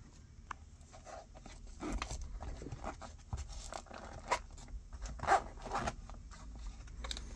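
A black nylon zippered knife pouch being handled and unzipped, in short scattered rustles and scrapes with a few light clicks, the loudest a little over five seconds in.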